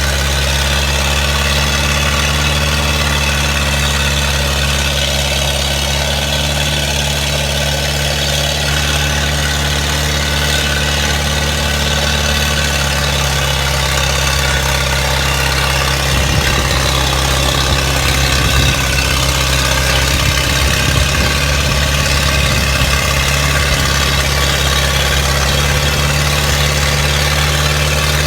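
Heavy engine idling steadily under a loud hiss, with some uneven low thumping in the middle.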